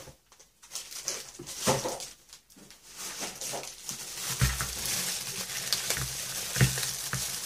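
Clear plastic packaging rustling and crinkling as craft supplies are handled, sparse at first and denser from about halfway, with a few dull knocks.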